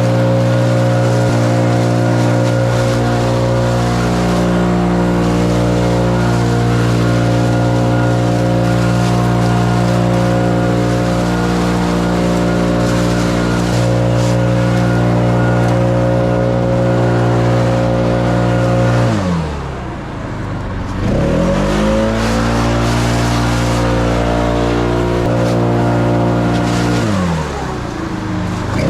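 A small petrol engine on lawn equipment running steadily at high speed. About two-thirds of the way in, and again near the end, it briefly drops in speed and comes back up.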